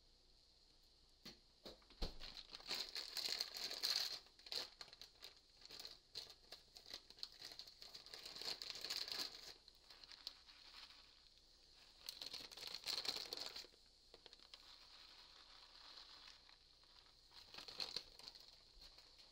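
Plastic bag of shredded cheese crinkling in several bursts as it is handled and shaken out over the pan.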